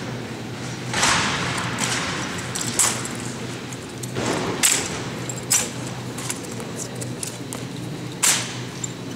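Drill rifles being slapped, spun and caught, with boot heels striking a concrete floor: about five sharp cracks and thuds a second or more apart, echoing in a large hall, over a steady low hum.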